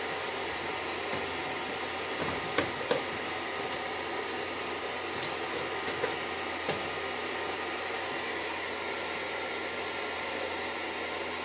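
Steady fan-like hiss of air, with a few faint clicks and taps a few seconds in and again near the middle.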